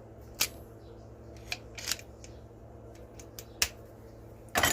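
Small metal hand tools clicking and clinking as they are handled and set down: a few separate sharp clicks, the loudest near the end, over a faint steady hum.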